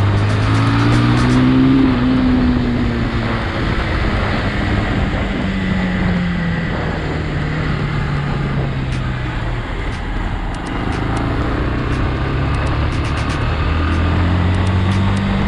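Bajaj Pulsar 180's single-cylinder engine running under way, rising in pitch as it accelerates in the first couple of seconds, easing off slowly, then picking up again near the end, over a steady rush of wind.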